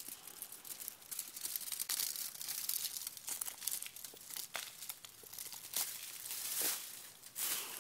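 Aluminium foil and plastic film layers of a blown 8 kV capacitor crinkling as they are unrolled and pulled apart by hand: a run of small crackles, with a few louder bursts near the end.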